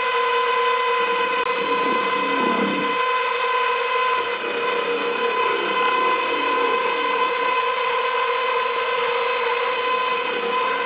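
CJ0618 mini lathe running at a steady speed, with a constant high motor whine, while a cutting tool faces a brass bar with a rough scraping sound.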